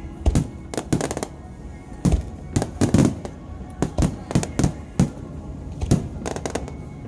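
Fireworks going off in a rapid, irregular series of sharp bangs, some coming in quick clusters of two or three, with over a dozen reports in about seven seconds.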